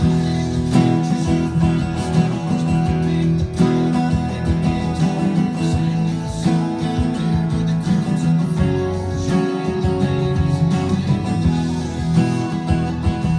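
Steel-string acoustic guitar strummed steadily, with the chords changing every second or two.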